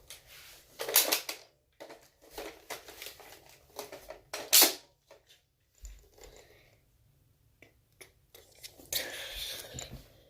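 Hard plastic clicks, clacks and rattles of Nerf blasters being handled, with a louder clack about a second in and another near the middle, and a rasping scrape near the end.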